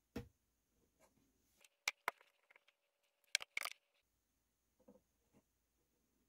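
Blaurock Blades BRB4 XL folding knife clicking as its blade is pressed against a pin on a digital scale. Sharp clicks and light knocks: one near the start, two quick clusters about two and three and a half seconds in, and two faint clicks about five seconds in.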